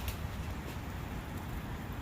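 Steady forest ambience by a brook: wind with a low rumble over a continuous hiss of running water, and one faint click right at the start.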